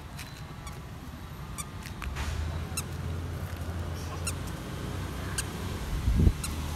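A toddler's squeaky shoes giving short high squeaks now and then as she walks, over a low steady rumble that comes in about two seconds in.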